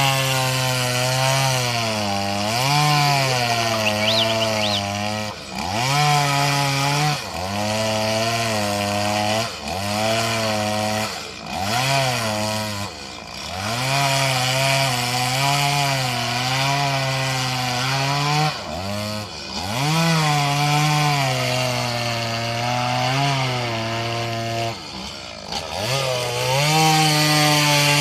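Two-stroke chainsaw running and cutting wood, its engine pitch sagging under load and rising again as the chain bites and frees, with several brief drops and quick revs back up where the throttle is eased off and opened again.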